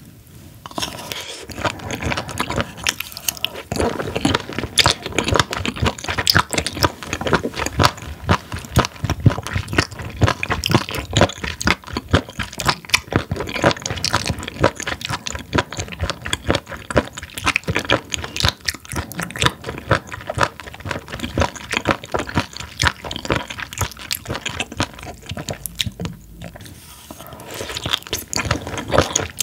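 Close-miked chewing of raw spoon worm (gaebul): a long run of rapid, crisp crunching chews, with a brief lull near the end.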